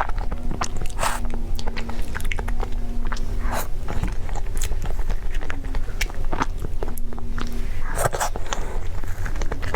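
Close-miked eating: repeated bites and chewing with crisp, crunchy crackles.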